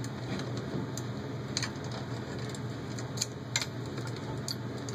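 Small metal screws and standoffs clicking and ticking as they are handled and fitted by hand into an aluminium motor mount plate: half a dozen light, scattered clicks over a steady low hum.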